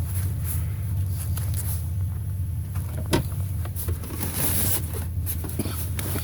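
Steady low drone of a running vehicle, with a sharp click about three seconds in and a few fainter knocks and rustles.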